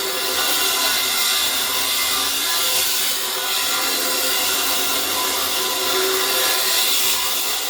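Power saw blade cutting through the thick steel wall of a safe: a steady, loud whine over a grinding hiss that runs without a break.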